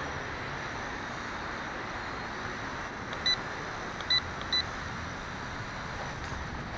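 Steady whirring noise of a WLtoys V262 quadcopter's propellers in flight, with three short high beeps from its radio transmitter about three, four and four and a half seconds in.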